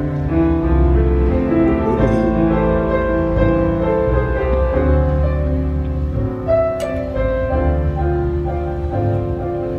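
Slow piano music, with long held notes and chords changing every second or so.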